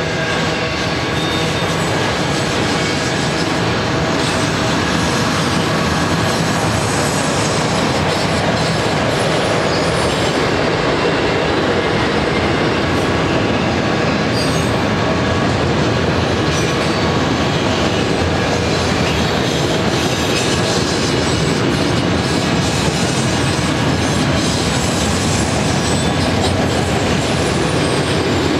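A freight train of multilevel auto-rack cars rolling past: a steady rumble and clatter of steel wheels on the rails, with faint steady high tones of wheel squeal.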